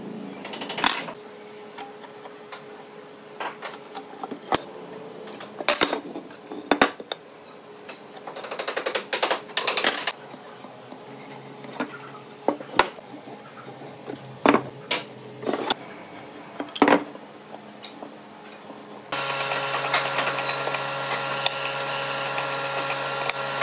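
Scattered knocks and scrapes from a pencil, a steel ruler and pine pieces being handled on a wooden workbench. About 19 seconds in, the electric motor of a bench-mounted drilling machine starts and runs steadily.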